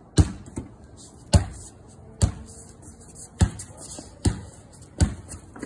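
A basketball being dribbled on a concrete patio: six bounces, roughly a second apart.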